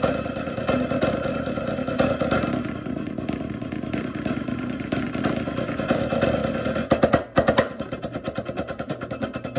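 Wooden drumsticks playing fast on a practice pad: a dense, roll-like stream of rapid strokes with accents. About seven seconds in comes a short cluster of louder accented hits, then even strokes at about seven a second.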